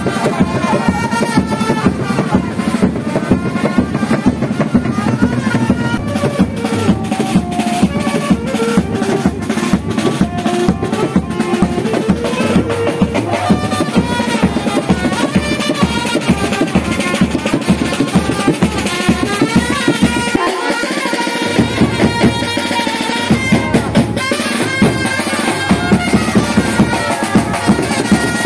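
Music with a steady drum-kit beat under a melody; the bass drops out briefly about twenty seconds in.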